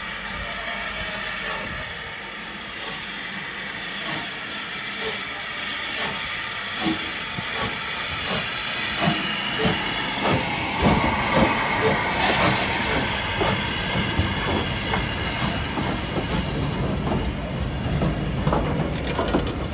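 LMS Jubilee class three-cylinder 4-6-0 steam locomotive pulling away slowly with a steady hiss of steam. Its exhaust beats get louder and stronger about halfway through as it passes close alongside.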